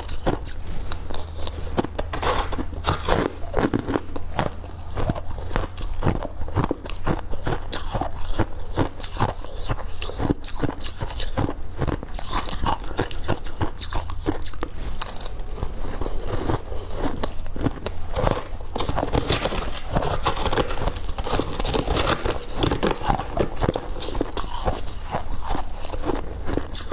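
A person biting and chewing hard ice and freezer frost: a dense, continuous run of crisp cracks and crunches.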